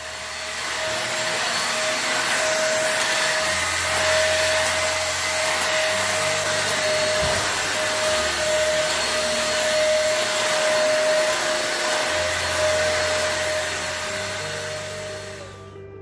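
Corded stick vacuum cleaner running steadily as it is pushed over a tiled floor: an even rushing of air with a steady motor whine. It cuts off just before the end.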